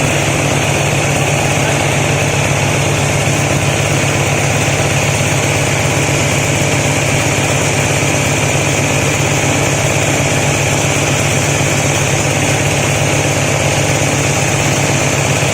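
Feather and corncob flour mill running steadily with a continuous mechanical hum and hiss.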